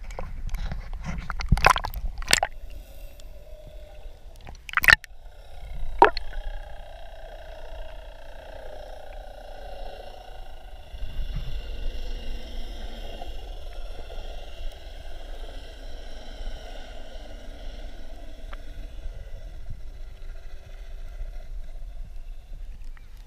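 Sea water sloshing against a GoPro Hero4's waterproof housing held at the surface, with several sharp knocks in the first six seconds. Then the steady, muffled noise of the camera held under water.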